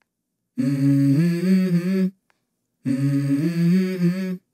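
Hummed vocal melody in short repeated phrases, each one stepping up in pitch, cut apart by stretches of dead silence as an edited music track.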